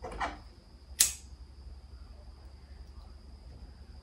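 A short rustle, then about a second in a single sharp click, the loudest sound, over a faint steady high-pitched whine and low hum.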